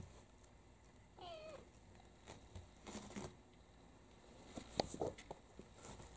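A young tabby kitten gives one short, falling mew about a second in. After it come faint scuffles and sharp little taps as kittens start play-wrestling, the loudest tap about three-quarters of the way through.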